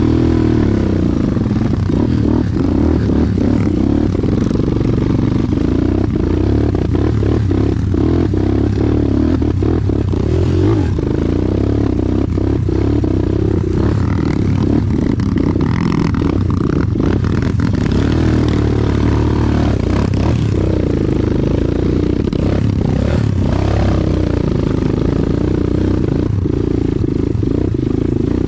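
Motorcycle engine running steadily while riding a rough dirt track, with frequent short clattering and knocking over the bumps.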